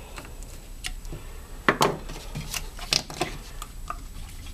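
Small metal parts clicking and clattering as a lawn-mower carburetor is worked with a screwdriver and handled, a handful of sharp ticks and knocks, the loudest about two seconds in.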